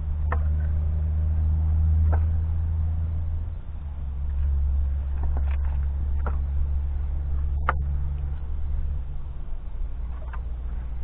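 Split firewood pieces knocking against each other as they are laid onto a stack: about seven sharp, short wooden knocks a second or two apart, over a steady low engine hum.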